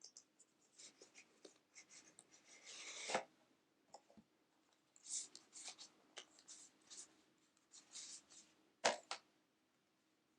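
Hands handling a Blu-ray box set's packaging: scattered soft rustles and scrapes, a longer slide about three seconds in that ends in a light knock, and two quick taps near the end.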